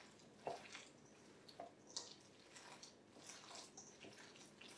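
Faint wet squishing and squelching of a soaked pretzel, egg and onion mixture being squeezed and mixed by hand in a stainless steel bowl, in irregular soft squelches, the most distinct about half a second and two seconds in.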